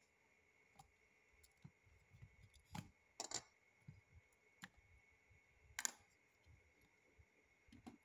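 Plastic Lego bricks clicking and clacking as a brick-built toy belt buckle is handled: a few scattered sharp clicks, the loudest about three and six seconds in, over near silence.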